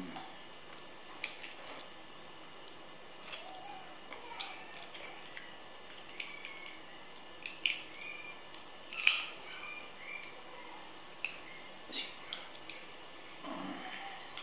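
Scattered small clicks and taps of a metal fork picking meat out of a cooked crab's shell, the sharpest about nine seconds in.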